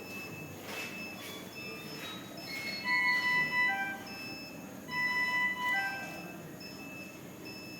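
Electronic beeps and alarm chimes from bedside hospital monitoring equipment: short, clean tones at several pitches, overlapping and repeating in similar groups.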